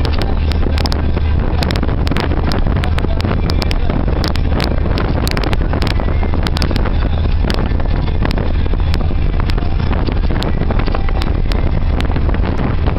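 A steady low engine drone under loud wind noise on the microphone, with many short sharp clicks or knocks scattered through it.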